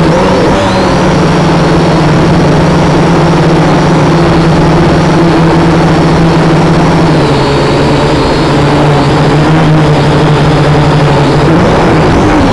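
Kaiser Baas Alpha quadcopter drone's electric motors and propellers buzzing loudly and steadily in flight. The pitch drops a little about seven seconds in and climbs back up near the end.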